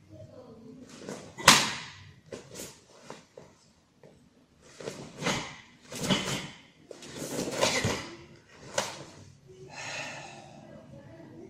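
Karate gi snapping and bare feet thumping and sliding on the mats during a kata, a series of sharp snaps and thuds with the loudest about one and a half seconds in.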